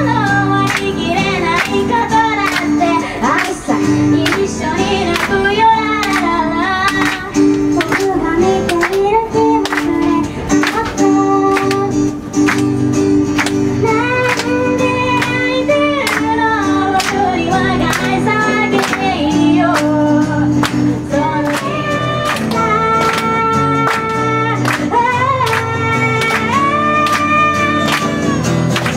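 A woman singing a song live while strumming an acoustic guitar in a steady rhythm.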